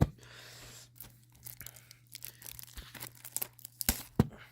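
Plastic shrink-wrap being torn and crinkled off a Blu-ray case, with a couple of sharp clicks near the end.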